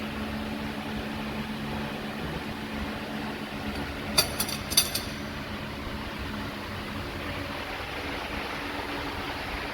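Chevrolet car engine running steadily with an even hum. About four seconds in, a few sharp clicks come in two quick groups.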